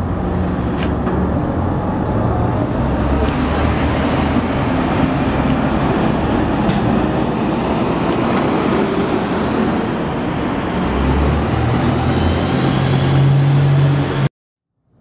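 Diesel single-deck buses pulling away and turning, engines running under load, with a rising whine as the second bus accelerates off near the end. The sound cuts off abruptly just before the end.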